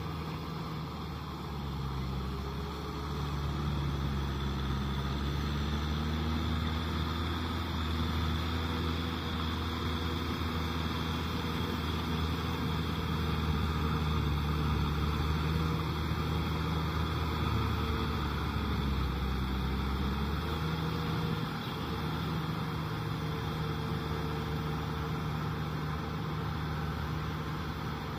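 Kubota M6040SU tractor's four-cylinder diesel engine running steadily under load as it drives a rotavator through flooded paddy, with the tiller churning wet mud and water.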